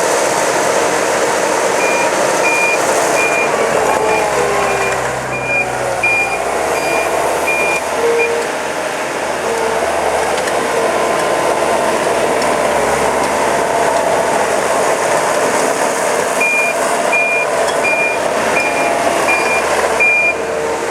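Gehl CTL80 compact track loader working, its 97-horsepower diesel engine running steadily, with the backup alarm beeping evenly as it reverses: one run of beeps from about two to eight seconds in and another from about sixteen to twenty seconds in.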